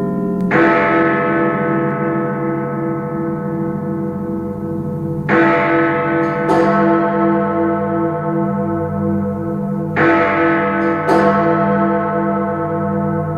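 Big Ben, the great hour bell of the Westminster clock tower, tolling: a heavy strike about every four to five seconds, each ringing on with a long, wavering hum into the next. Twice a second stroke follows about a second after the main one.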